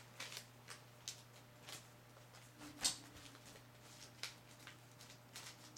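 Light crinkling and scattered small clicks of a blind-bag packet and its contents being handled and opened by hand, with the sharpest click about three seconds in. A faint steady hum runs underneath.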